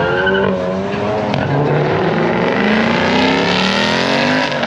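Car engine pulling under throttle, its pitch climbing steadily, with a drop near the end as of a gear change.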